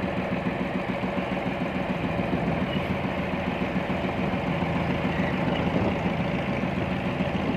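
Engine of a motor launch running steadily under way, heard from on board.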